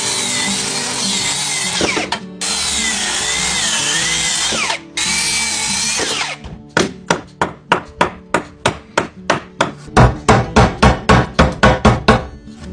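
A power drill-driver runs in three bursts, its whine sagging in pitch under load as screws are driven into the wooden brace. About six seconds in, a fast run of hammer taps on wood begins, about five a second, and grows heavier near the end.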